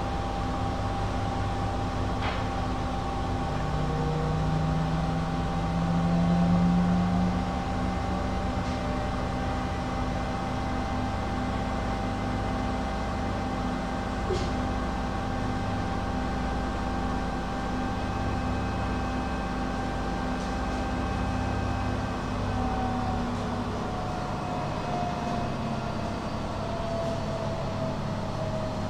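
Schulthess washing machine running with a steady motor whine and drum rumble; near the end the whine slowly falls in pitch. A louder low hum swells and fades a few seconds in, and there are a couple of faint clicks.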